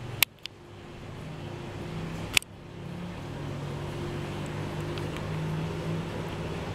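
A steady low hum that slowly gets louder, with a sharp click about a quarter second in and another about two and a half seconds in.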